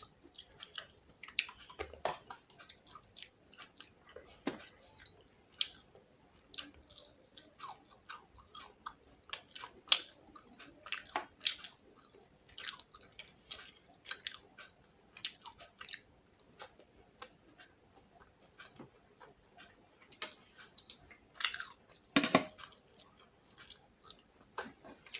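A person chewing a mouthful of rice and fish close to the microphone: an irregular run of small mouth clicks.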